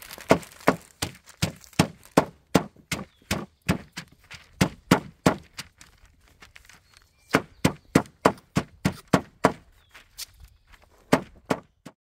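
Hammer blows on paper laid over flowers and leaves on a plywood board, a steady run of sharp strikes about two or three a second, pausing briefly twice. The hammering pounds the plant colours out onto the card stock beneath.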